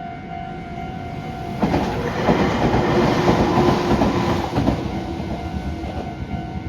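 A Meitetsu Mikawa Line electric train passing over the level crossing: wheel and rail noise comes in suddenly under two seconds in, is loudest for about three seconds, then fades as it moves off. Throughout, the crossing's electronic warning bell sounds steadily.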